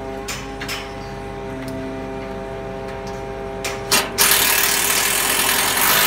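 Truck-mounted crane's engine and hydraulics running at a steady, fixed pitch, with a few sharp metallic clicks in the first seconds. About four seconds in, a loud hiss starts and holds.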